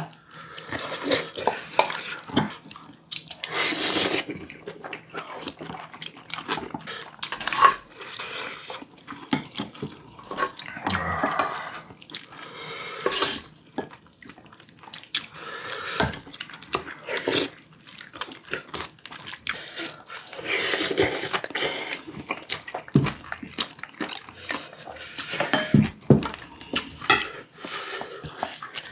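Spoons and chopsticks clinking and scraping against bowls and dishes during eating, with some liquid sounds from a soup bowl.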